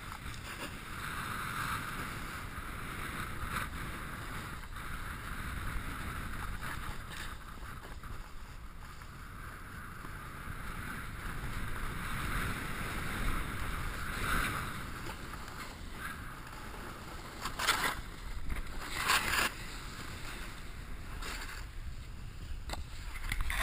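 A snowboard sliding and carving down packed snow, a steady rushing scrape, with wind rushing over the microphone. There are two louder bursts about three-quarters of the way through.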